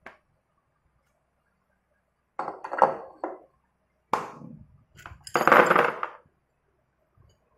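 Metal clinks and scrapes as a perforated clutch bell is fitted over the clutch on a scooter's CVT. There are three bouts of handling noise, about two and a half, four and five and a half seconds in, and the last is the loudest.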